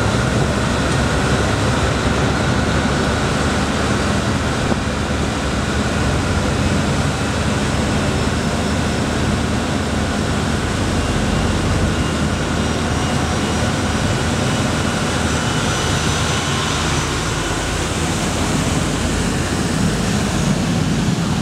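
A boat under way at speed: a steady rush of wind and water over the low drone of its engines.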